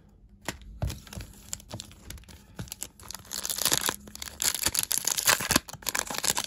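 A Pokémon Celebrations foil booster pack being torn open by hand, the wrapper crinkling and ripping in the second half. Before that come a few small clicks and taps of handling.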